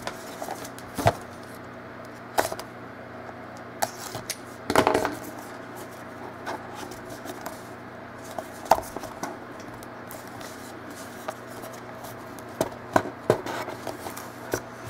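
A small cardboard trading-card box being handled and opened by hand: scattered clicks and taps, with a short rustle about five seconds in, over a faint steady hum.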